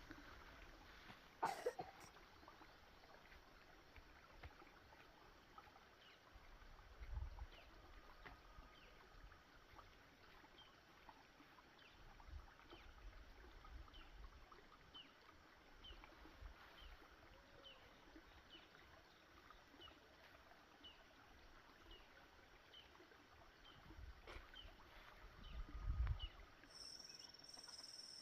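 Quiet rural outdoor ambience: faint short chirps repeating a little over once a second, with a sharp click near the start and occasional low rumbles. A steady high insect buzz starts near the end.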